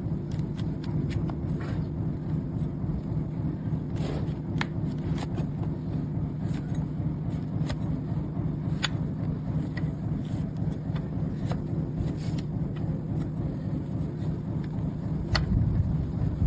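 Scattered sharp clicks and scrapes of a knife trimming a donkey's overgrown hoof, over a steady low hum like an idling engine.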